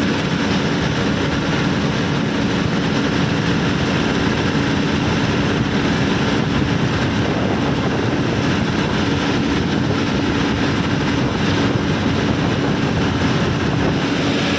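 Diesel engine of a heavy vehicle running steadily, with a constant drone and no change in speed.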